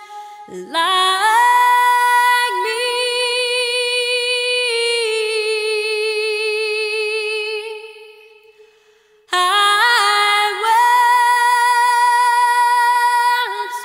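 A woman singing unaccompanied, long held notes with a wavering vibrato. The phrase fades out about eight seconds in and a new phrase begins about a second later.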